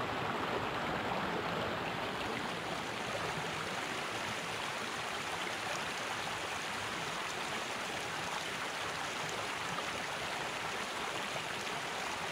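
A small, shallow stream flowing fast over rocks, making a steady, even rush of water.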